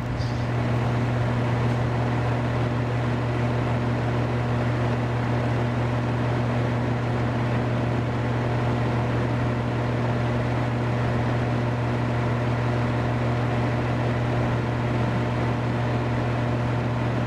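Window air conditioner running just after startup, its fan and Emerson Copeland scroll compressor making a steady, even hum.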